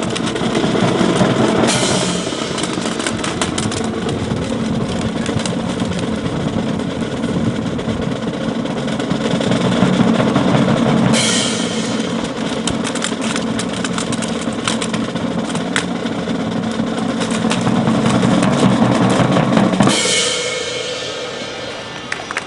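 Drums playing continuously, snare and bass drum with cymbal crashes about every nine seconds. The low drumming stops about twenty seconds in on a last cymbal crash that rings out.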